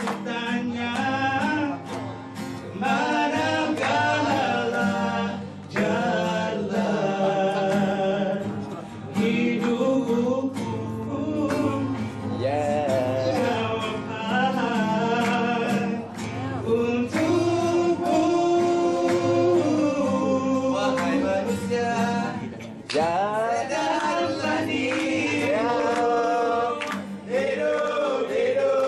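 Two men singing a song into microphones, accompanied by an acoustic guitar.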